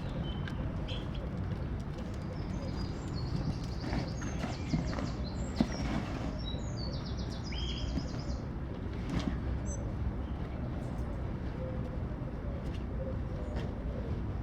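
Small birds chirping and singing short, quick trilled phrases, mostly in the first half, over a steady low background rumble.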